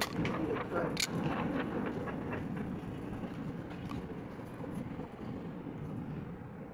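Blue WADFOW ratchet pipe cutter's blade snapping through a soft plastic tube: a sharp click at the start and a louder one about a second in, with a few lighter ticks after. A steady low rumble runs underneath.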